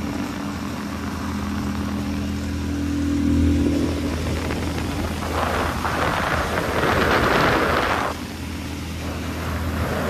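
25 hp Mercury outboard motor running steadily as the boat cruises, a low even hum. A rushing noise swells over it for a few seconds in the middle and again near the end.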